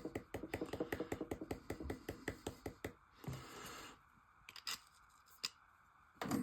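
Desiccant beads settling in a compressor dry-pack filter tube as they are packed down: a fast run of small clicks, about ten a second, for the first three seconds, then a brief scrape and a few separate clicks.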